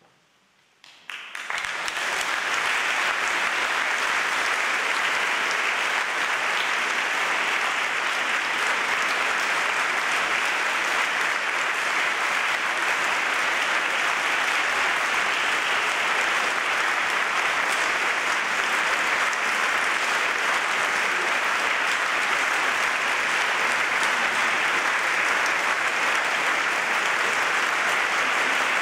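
Large audience applauding steadily in a big church nave. The clapping starts about a second in, out of near silence, and quickly swells to a full, even level.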